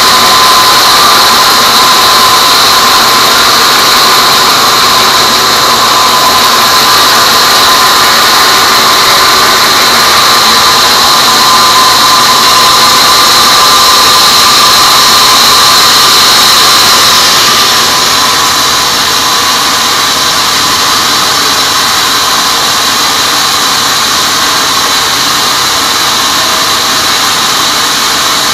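Sawmill band saw cutting lengthwise through a teak log, a loud, steady whine with a high ring. About two-thirds of the way through, the ring fades and the sound drops slightly as the blade runs free out of the cut.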